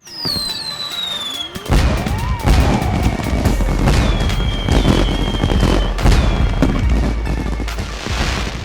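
Music with a heavy sustained bass, mixed with firework bangs and whistles. Several falling whistles sound in the first second and a half, then a run of sharp bangs.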